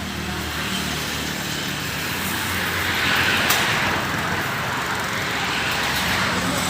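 Road traffic: a vehicle passing, swelling and fading about halfway through, over a steady low hum.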